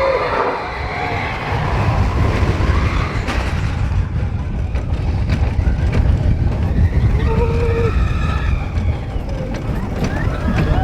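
Expedition Everest roller coaster train running along the track: a loud, steady low rumble with wind on the microphone. A brief held cry from a rider comes about seven seconds in.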